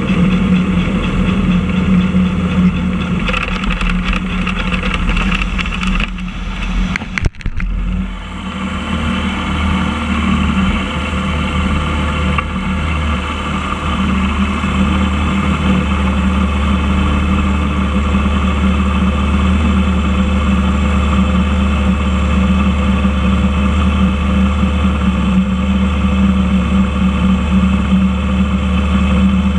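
Motorcycle engine turning over at low speed, with a sharp dip in the sound about seven seconds in. After that it idles steadily with an even, unchanging note.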